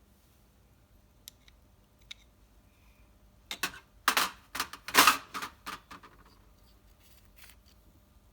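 Sharp clicks and clacks from hand work on small parts: a few single clicks, then a quick run of them about three and a half to six seconds in, and one more near the end.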